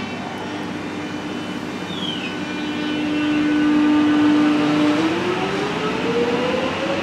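X'Trapolis 100 electric multiple unit pulling away from the platform: its traction motors give a steady whine that starts rising in pitch about five seconds in as the train gathers speed. A brief high squeak sounds about two seconds in.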